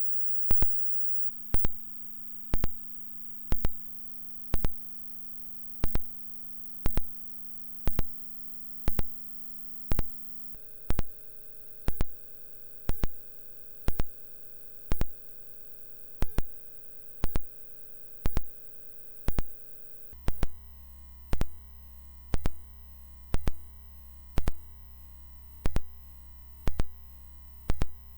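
Hearing-test tones: a steady electronic test tone that switches to a new pitch about a second in, again near ten seconds and again near twenty seconds. A sharp tick a little more than once a second runs through it and is louder than the tone.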